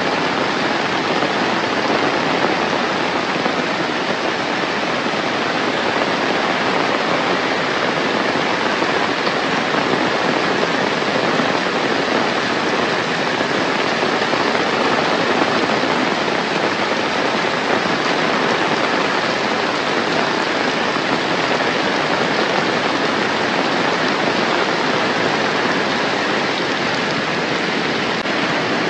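Heavy rain falling steadily, an even, unbroken hiss.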